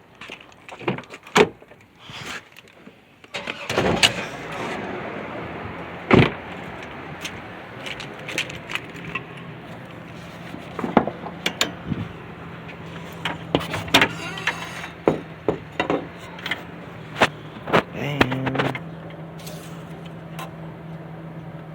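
A freshly rebuilt Nissan Altima's engine starts about three seconds in and then idles steadily, under sharp clicks and knocks.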